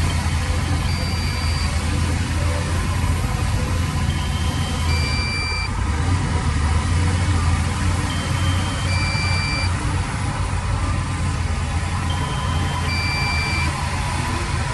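Heavy diesel engine of construction machinery running steadily at idle, with an electronic two-note beep, a higher note then a lower one, repeating about every four seconds.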